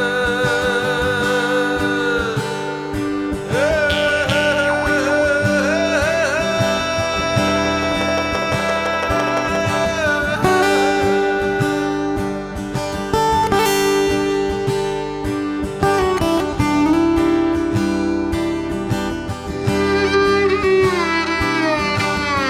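Background music led by guitar, with long held melody notes that waver in pitch and change every few seconds.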